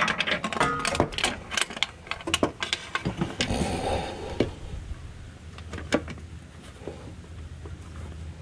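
Socket wrench and extensions clicking and clinking metal on metal as they are worked up onto a bolt, a quick irregular run of clicks for the first few seconds, then only a few scattered knocks.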